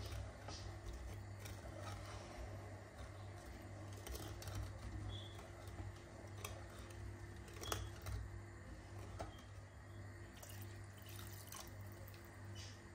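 Wooden spoon stirring thin sugar syrup in an enamelled pot: faint swishing of the liquid, with scattered light taps of the spoon against the pot. A steady low hum runs underneath.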